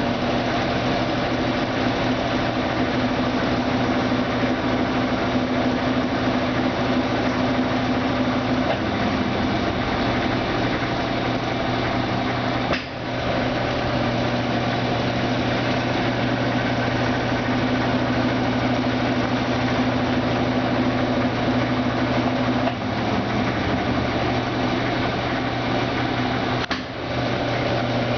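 Brastemp Ative BWL11AR washing machine running with a steady motor hum, dipping briefly three times, about a third of the way in, near two-thirds and near the end.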